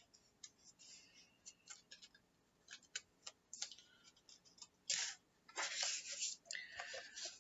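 A paper page of a hardcover picture book being handled and turned: faint scattered clicks and taps of fingers on paper, then a louder rustle from about five seconds in as the page turns over.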